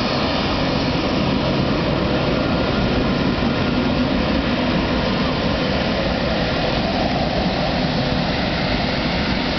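Emirates Airbus A380's four jet engines running steadily as the airliner moves past close by on the ground, a constant loud rushing roar with no rises or breaks.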